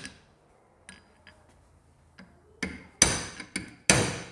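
Hammer tapping the crankshaft and balancer shaft of a Bajaj Pulsar NS160 engine down into their bearings in the crankcase: a few light taps, then four hard ringing strikes in quick succession in the second half.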